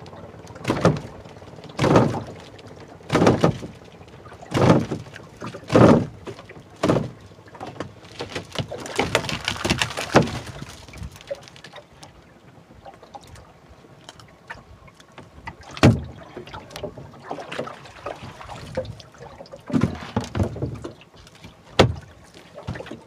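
Dull knocks against a small boat's hull, about one a second, as a handline is hauled in hand over hand, then a rush of splashing as a skipjack tuna is pulled from the water, followed by scattered knocks on the boat.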